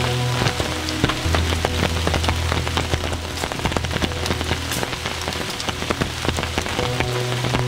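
Steady rain falling, with many close drops striking a surface one after another.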